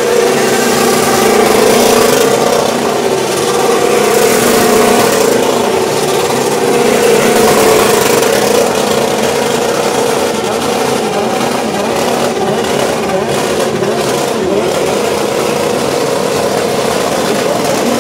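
Motorcycle engine running loud at high revs, its pitch wavering up and down slightly.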